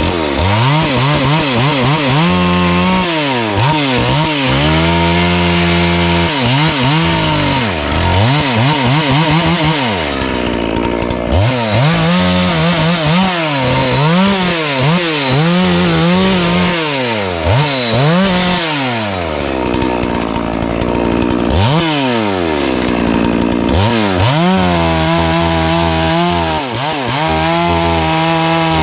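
FarmMac F380W 72cc two-stroke chainsaw cutting wood, revved up and let back down again and again, with several longer stretches held at full throttle.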